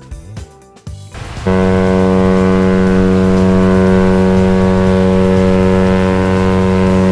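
A ship's horn sounding one long, steady, deep blast, starting about a second and a half in, over light background music.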